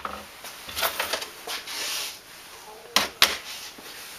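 A few sharp clicks and knocks, one right at the start and two close together about three seconds in, with faint rustling between them.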